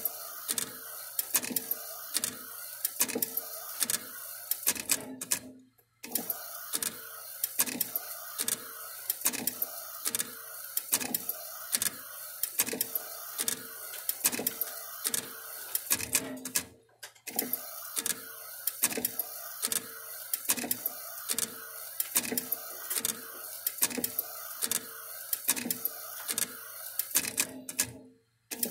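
Flatbed inkjet printer running as it direct-prints poker chips: the print-head carriage shuttles back and forth in a regular rhythm of about two strokes a second, with sharp clicks on each pass. The sound drops out briefly three times.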